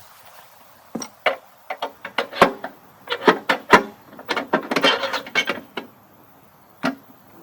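A rapid, irregular clatter of sharp knocks for about five seconds, then a single knock near the end.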